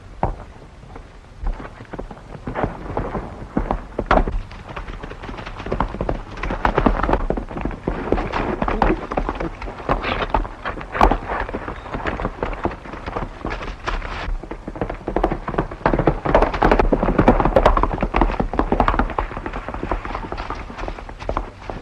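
Galloping horse hoofbeats on a dirt trail: a dense, rapid, irregular clatter that swells and fades several times.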